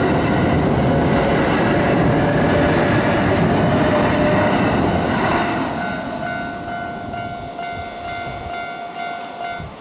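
Kintetsu 9020/9820-series electric train accelerating away from the platform: wheel rumble on the rails with a faint rising motor whine. After about six seconds the rumble fades and a level-crossing warning bell rings in a steady repeating rhythm.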